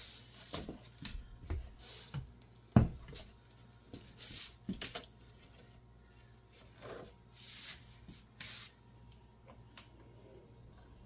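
Handling noises at a workbench during a wood glue-up: a sharp knock about three seconds in, then several short hissing sounds and scattered small clicks.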